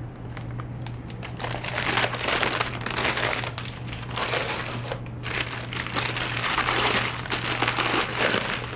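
Crumpled newspaper and paper-bag packing crinkling and rustling as hands unwrap glassware and lift another wrapped piece out of a cardboard box.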